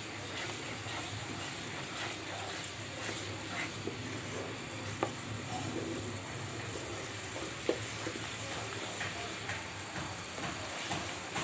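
Thick spice paste sizzling in a frying pan while a wooden spatula stirs and scrapes through it, with occasional sharp knocks of the spatula against the pan. The masala is being cooked down (kasha) before the vegetables and fish go in.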